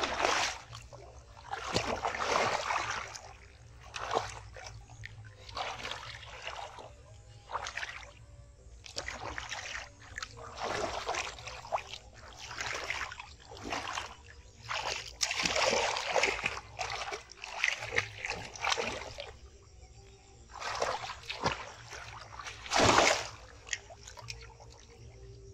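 Splashing and sloshing of shallow muddy water as a child's arms and hands sweep and thrash through it, groping for fish. The splashes come in irregular surges every second or two, the loudest one near the end.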